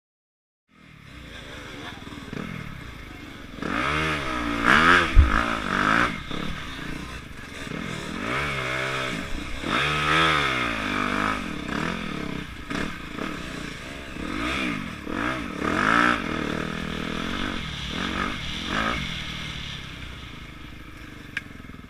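Yamaha YZ dirt bike engine revving up and falling back again and again under hard riding, close to a helmet camera, with rattling from the bike over rough ground and a heavy thump about five seconds in.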